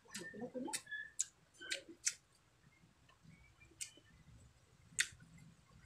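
Close-miked eating: chewing a mouthful of shrimp omelette and rice, with wet mouth and lip smacks. There are several sharp smacks in the first two seconds, then sparser ones, with a loud one about five seconds in.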